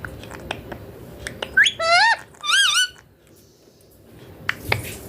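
Indian ringneck parakeet giving two shrill calls about two seconds in, the first rising and the second wavering up and down, with a few sharp clicks before them.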